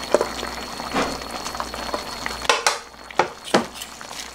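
Spicy braised chicken sauce simmering and bubbling in a shallow electric pan, while chunks of onion and carrot are dropped in by hand, giving a few sharp knocks, the clearest about two and a half to three and a half seconds in.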